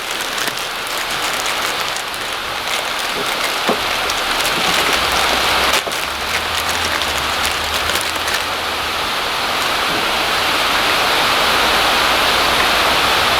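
Steady rain falling, an even hiss, with a couple of short sharp clicks about four and six seconds in.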